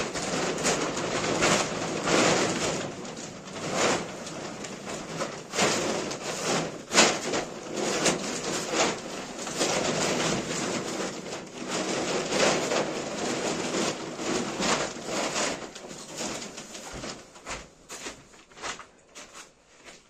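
Plastic tarpaulin crinkling and rustling as sheep feed is mixed by hand on it: dense, irregular crackling that thins out over the last few seconds.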